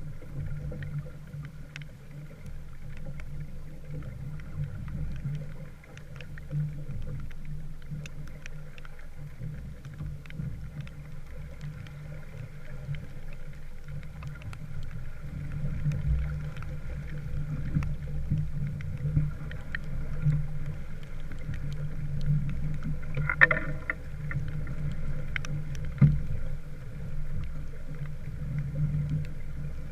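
Small wooden sailboat underway: a steady, muffled rumble of water and motion around the hull, with faint ticks and two short knocks near the end.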